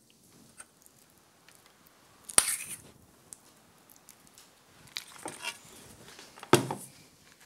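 Metal spoon and stainless steel bowl clinking and scraping as fish filling is scooped onto pastry discs, with one sharp clink about two and a half seconds in. A heavier knock near the end as the bowl is put down on the worktop.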